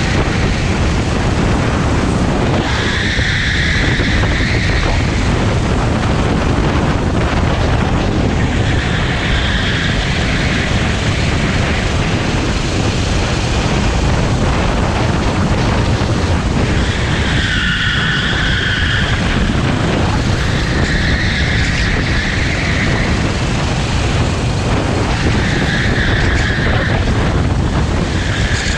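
Honda GX390 single-cylinder four-stroke engine of a rental kart running hard at racing speed, heard onboard. A higher note rises over it for a second or two, five times.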